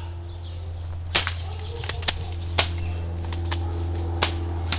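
A handful of sharp snaps or pops at irregular intervals, the loudest a little over a second in, over a steady low hum.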